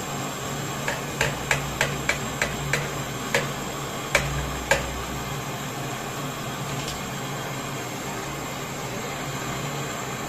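Gas brazing torch flame hissing steadily against a compressor's copper tube during brazing. About ten sharp clicks or taps come in quick succession in the first five seconds.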